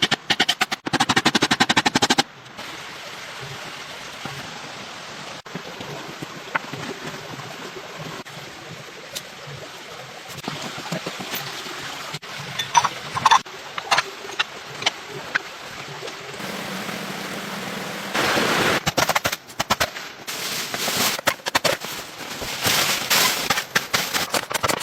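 Bursts of rapid knocking strokes in the first two seconds and again over the last several seconds, with a steady hiss and scattered sharp clicks between.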